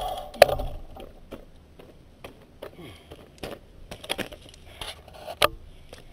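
The electric drive unit's motor hum dies away within the first second, with a sharp click as it cuts; after that, scattered light clicks and knocks, around a dozen, over a much quieter background.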